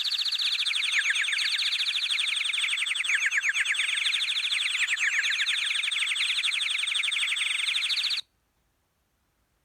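A preloaded ringtone on a Huawei G7002 mobile phone: a fast electronic warble of rapidly repeating high chirps, alarm-like, with a pitch that drifts down and wavers. It cuts off suddenly about eight seconds in.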